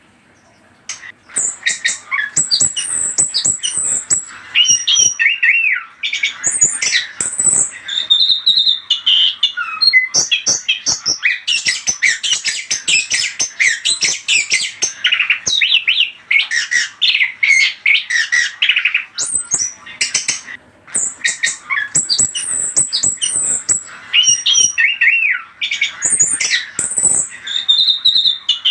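Chestnut-backed thrush (anis kembang) singing a fast, varied song of whistled and harsh notes, a lure song meant to set other kept birds singing in reply. It pauses briefly about a second in and again at about 20 seconds.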